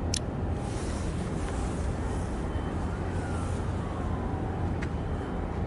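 Steady low outdoor rumble and hiss, like distant traffic or wind, with a faint falling tone about three seconds in and a sharp click near the start and another near the end.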